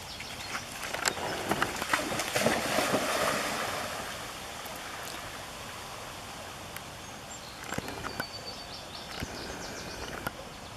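Water splashing as a dog plunges into a pond, loudest in the first few seconds, then fainter steady water noise with a few more splashes near the end as it swims.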